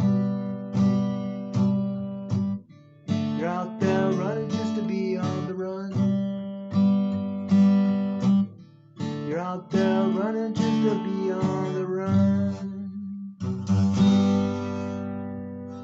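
Acoustic guitar strumming the closing chords of a country song. A final chord is strummed about fourteen seconds in and rings out, fading away.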